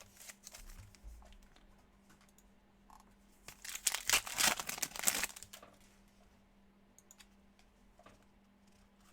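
Crinkling and tearing of a trading-card pack wrapper, loudest for about two seconds in the middle, with light rustles and clicks of cards being handled before and after.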